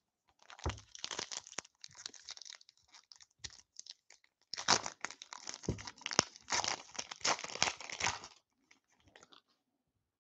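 Shiny wrapper of an Upper Deck hockey card pack crinkling and tearing as it is pulled open by hand, in uneven bursts that grow louder about halfway through and stop a couple of seconds before the end.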